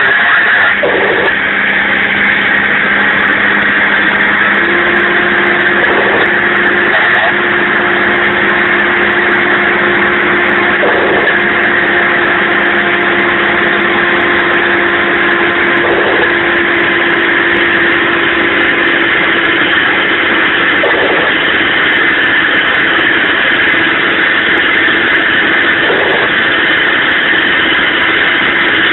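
Mack dump truck's diesel engine labouring under a load of about 17 tons while climbing a mountain grade, heard from inside the cab through a phone: a loud, steady drone with a whine over it. A steadier humming tone comes in about five seconds in and fades out around twenty seconds.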